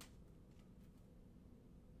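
Near silence: low room hum, with one faint click right at the start.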